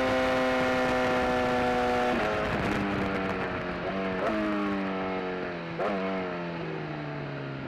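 Superbike engine heard from the bike itself: a steady high engine note at first, then the rider rolls off and downshifts several times, each shift marked by a quick throttle blip, so the engine note drops in steps as the bike slows. The wind rush fades as the speed comes down.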